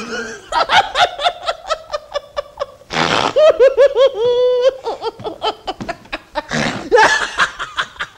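A man laughing hard in repeated bursts, with a quick run of higher-pitched laughs about halfway through.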